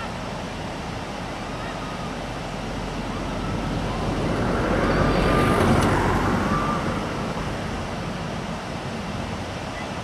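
Whitewater river rapids rushing: a steady noise of churning water that swells for a few seconds around the middle. Faint distant voices call out over it.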